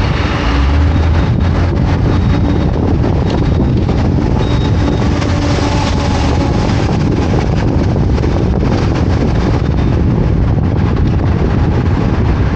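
Steady driving noise in city traffic: a loud, continuous low rumble of the car and road, with wind buffeting the microphone.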